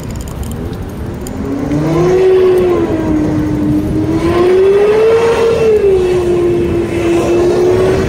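Street traffic rumbling at an intersection, with a loud motor whine that comes in about a second and a half in, rises and falls in pitch, then holds steady.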